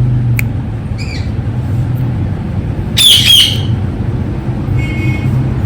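Ringneck parrot squawking in short shrill calls: a brief call about a second in, a louder squawk about three seconds in, and a faint buzzy call near the end, over a steady low hum.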